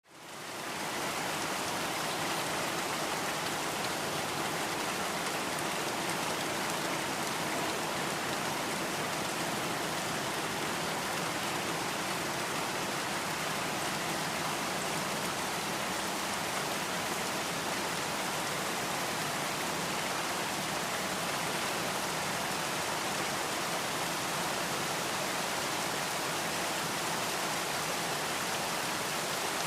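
Steady light rain falling, an even hiss of drops that fades in over the first second.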